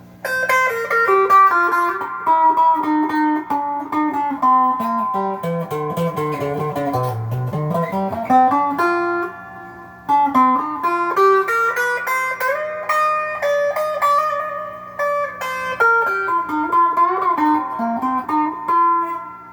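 Telecaster-style electric guitar through an amp, in the middle pickup position with both pickups split to single coil, playing single-note lead lines. The lines run down low, pause briefly about ten seconds in, then climb again with string bends and held notes.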